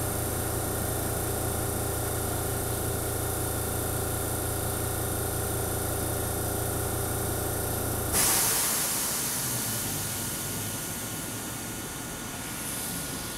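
A stationary Keihan 3000 series electric train gives a steady low hum. About eight seconds in the hum cuts off and a sudden loud hiss of released air starts, then fades away over several seconds.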